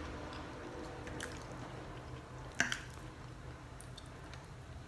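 Soft, wet mouth sounds of a person eating macaroni and cheese off a fork, with a couple of light clicks, the sharpest about halfway through.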